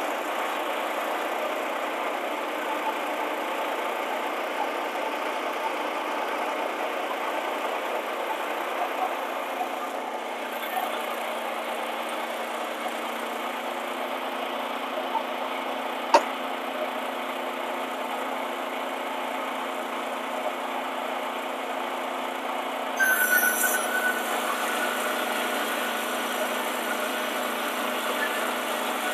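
Wood-Mizer EG100 board edger's small engine running steadily, with a single sharp click about sixteen seconds in and a short, louder burst of noise with a high whine about twenty-three seconds in.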